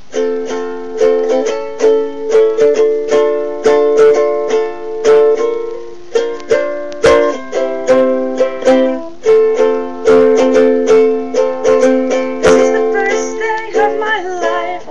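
Ukulele strummed in chords, a few strokes a second, changing chord every few seconds; the strumming stops near the end.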